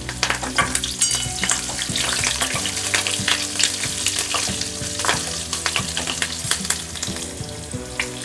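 Fresh curry leaves crackling and spattering in hot oil with mustard seeds, cumin and green chilli in a small steel pan: the tempering (phodni) for a Maharashtrian usal. A steel spoon stirs through the pan partway in, and the crackling thins toward the end.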